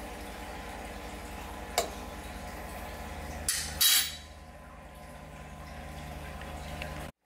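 A metal spoon knocks against a stainless steel saucepan of wet milk curds: a light clink just under two seconds in, then a louder clatter at about three and a half seconds, over a steady low hum.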